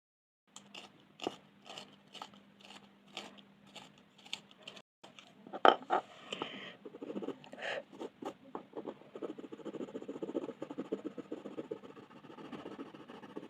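Colouring strokes on paper with a pen or coloured pencil. At first there are separate scratchy strokes about twice a second, then a sharp knock, then quick back-and-forth scratching as an area is filled in.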